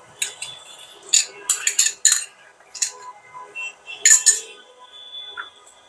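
Metal kitchen utensil clinking sharply against a bowl and pan while eggs are beaten and scrambled, a quick run of clinks in the first half and a double clink about four seconds in.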